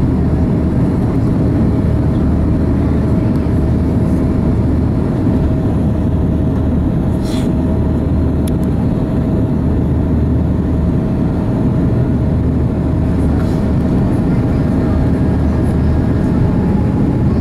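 Steady in-cabin noise of an Airbus A340-600 on final approach: a dense low rumble of its Rolls-Royce Trent 500 engines and airflow, with a steady hum running through it. A short click about seven seconds in.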